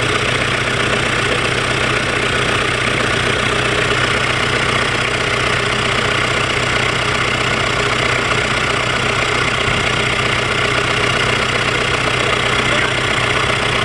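Freshly repaired diesel engine idling steadily on a test run, judged sound and free of vibration.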